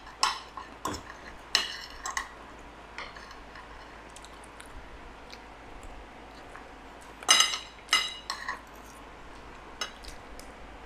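Metal spoon and fork clinking and scraping against a ceramic plate while eating, in scattered sharp clinks, with a quiet stretch in the middle and a louder cluster about seven seconds in.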